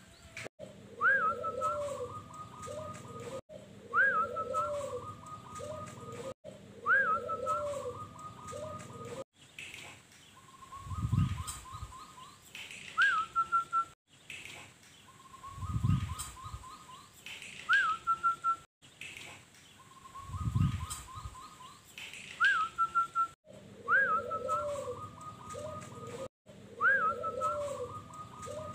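Zebra dove (perkutut) singing its repeated song: each phrase a short rising whistled note that falls into a quick trill, with lower cooing notes beneath, coming about every two to three seconds. Three short low rumbles come in midway.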